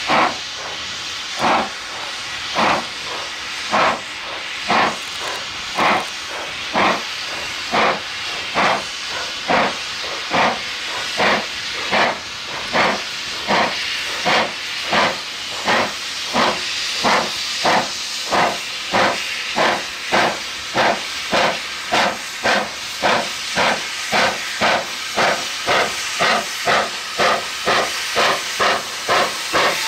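Steam locomotive working hard, its exhaust beats quickening from about one a second to about two a second as it picks up speed, over a steady hiss of steam.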